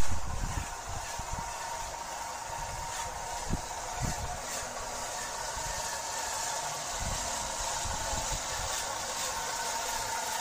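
Radio-controlled scale trucks driving slowly past: a steady motor hum with a thin whine, over low rumbling that comes and goes.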